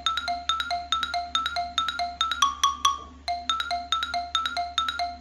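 Background music of quick, bright struck notes in a bouncy repeating pattern, about five notes a second, with a short break a little past halfway.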